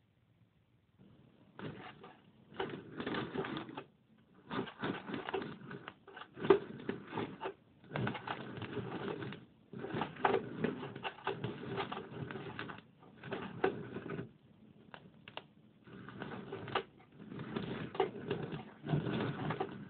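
A mouse gnawing: rapid crunching and scraping clicks in bursts of one to two seconds with short pauses between, starting about a second and a half in.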